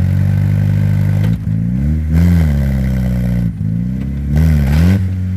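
Beach buggy engine running under load and revved up twice, about a second and a half in and again near four seconds, each rev rising and falling in pitch, as the buggy's wheels spin in soft sand trying to get it unstuck.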